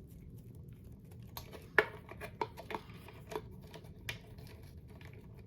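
Scattered light clicks and rustles of hands working the light kit's electrical wires and connectors, with one sharper click about two seconds in.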